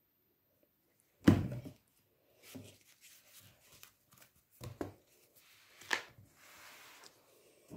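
Stiff card pages and flaps of a handmade scrapbook being turned and laid down: a thud about a second in, then several lighter taps. Near the end, paper slides as a tucked-in insert is pulled out.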